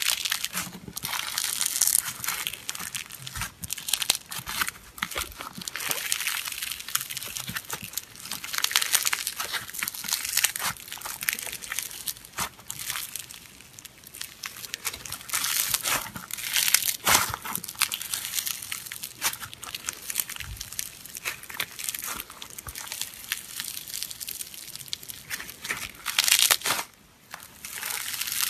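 Floam slime, packed with tiny foam beads and sequins, being squeezed, folded and pressed by hand. The beads give off dense, irregular crackling and crunching that comes in waves with each squeeze, with a brief lull near the end.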